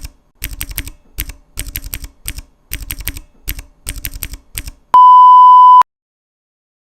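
Fast typing on a full-size mechanical keyboard with Outemu Brown switches, keystrokes clacking in quick runs. About five seconds in, a loud steady electronic beep sounds for under a second.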